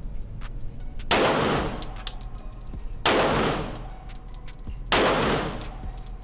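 Three 9mm handgun shots, fired slowly, about two seconds apart, each a sharp crack followed by a long echoing decay.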